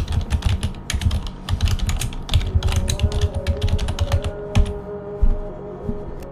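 Computer keyboard being typed on: a fast run of keystroke clicks, about six a second, thinning to a few scattered keys near the end.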